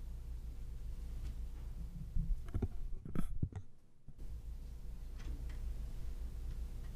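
Steady low hum of a meeting room picked up through its microphone system, with a few sharp knocks and clicks about two to three and a half seconds in; the sound then cuts out completely for about a second and the hum comes back.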